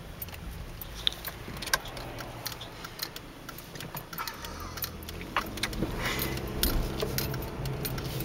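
Low rumble of a car heard from inside the cabin, with scattered light clicks and taps at irregular moments.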